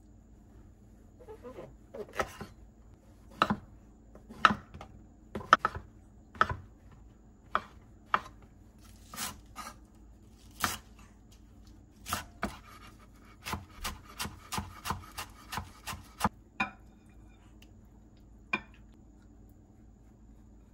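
Kitchen knife chopping food on a cutting board: separate cuts at first, then a quicker run of chops, stopping near the end.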